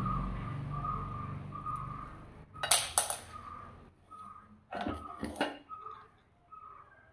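Handles and fittings clattering against an aluminium pressure cooker body as they are set inside it: two sharp metallic clinks a few seconds in, then two more clattery knocks about five seconds in.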